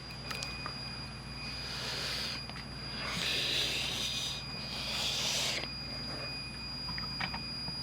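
Pioneer CT-W840R cassette deck mechanism running with a thin steady high-pitched squeal, which the owner suspects is a slipping drive belt. Three hissy scraping noises come in the middle, and there are a few light clicks near the start and the end.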